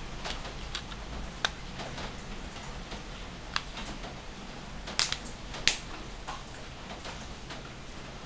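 Plastic back cover of a Samsung Galaxy J1 Mini being pressed onto the phone, its edge clips snapping into place in a series of sharp clicks. The loudest two come about five seconds in, over a steady low hum.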